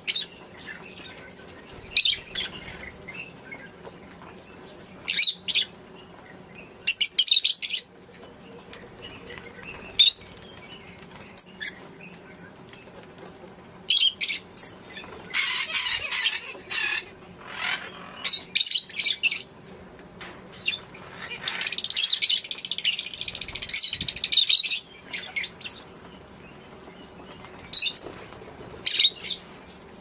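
A flock of lovebirds (peach-faced and Fischer's types) giving short shrill chirps in scattered bursts, with a few seconds of dense continuous chatter about three-quarters of the way through.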